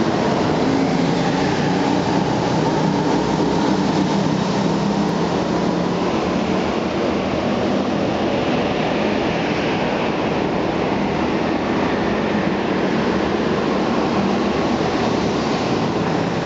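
Several go-kart engines running together as the karts lap an indoor track, a loud continuous drone that echoes around the enclosed hall.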